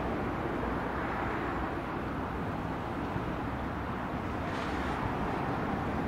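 Steady, even noise of motorway traffic on the M2 road bridges, with no single engine or horn standing out.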